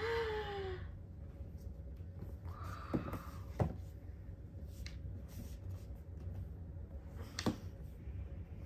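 Packaging of a product box being opened and handled: a short falling squeak right at the start, a brief scraping slide about three seconds in, and a few sharp knocks and taps.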